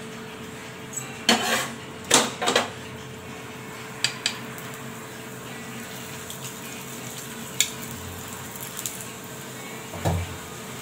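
Steel kitchen utensils clattering against a tawa and pans. There are several sharp clinks and knocks between one and two and a half seconds in, a couple of light taps around four seconds, and a duller knock near the end, over a faint steady hum.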